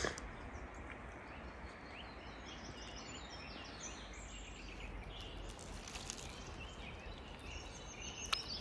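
Quiet outdoor woodland ambience: a steady soft hiss and low rumble, with small birds chirping in the background, mostly about halfway through and again near the end.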